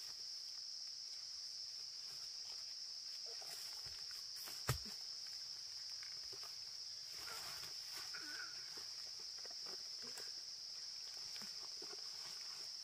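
Insects chirring in a steady, high-pitched drone, with one sharp knock a little over a third of the way in.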